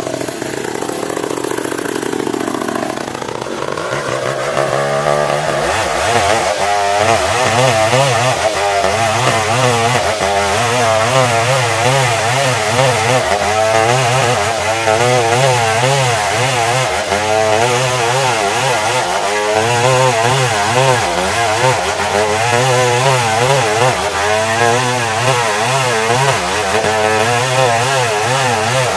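Stihl 070 two-stroke chainsaw revving up, then running at high revs under load as it saws planks from a log, its pitch wavering steadily up and down.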